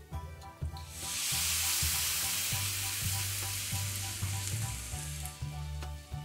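Hot pan sizzling as chopped calabresa sausage and bacon fry in their own fat, a dense hiss that starts abruptly about a second in and dies away near the end.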